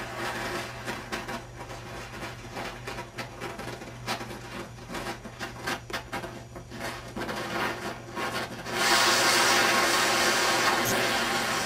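Hydrogen-fed torch flame burning against metal: a scratchy crackling with many small clicks, then a steady, louder hiss starts suddenly about nine seconds in.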